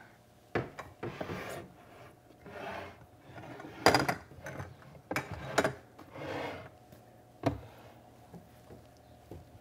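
Rummaging through kitchen cupboards: scattered knocks and clatters of items being moved, the loudest about four seconds in, with a few short brushing, sliding sounds between them.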